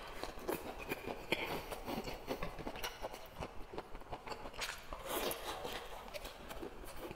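A person chewing crispy deep-fried battered food close to a clip-on microphone: a run of crunches and wet mouth clicks, with a louder bite about five seconds in.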